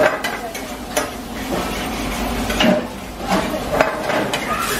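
Metal tongs scraping and clinking against a steel frying pan as crab pieces are stirred and turned in ghee masala, with several sharp clinks over a steady sizzle.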